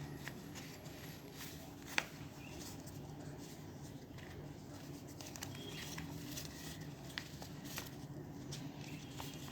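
Paper being folded and creased by hand: soft scattered rustles and small clicks, with one sharper click about two seconds in, over a faint steady low hum.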